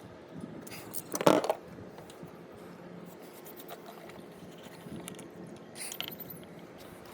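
Engine oil draining from the sump of a 2018 Mercedes GLA250 into a catch pan, a steady low pour, with a brief louder clatter about a second in.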